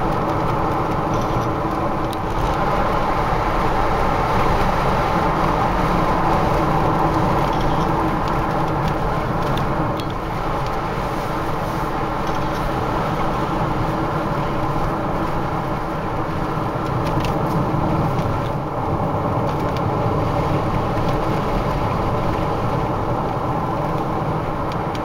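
Road noise inside a moving car's cabin: engine running and tyres on asphalt, a steady drone.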